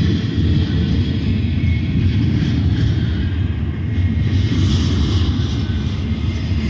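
Double-stack container train's well cars rolling past on the rails, a steady, loud rumble of wheels and cars.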